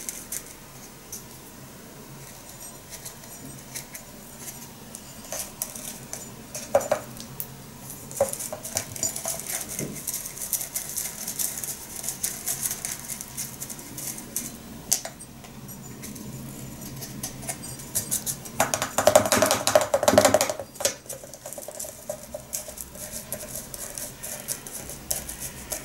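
Dry loose-leaf sencha rustling, with small scattered clicks and scrapes of a scoop and fingers against a small clay teapot as the leaves are pushed through its narrow opening. A louder spell of rustling comes about three-quarters of the way through.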